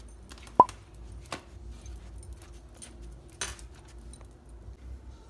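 Hands folding and pressing thin yufka dough sheets on a countertop: soft crinkling and rustling, with a sharp tap about half a second in and a louder rustle a little past three seconds. A faint steady hum runs underneath.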